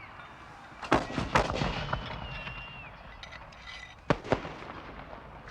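Rifle shots at a firing range: two sharp shots close together about a second in and two more just after four seconds, each with a short echo. A high held tone sounds for about a second around the two-second mark.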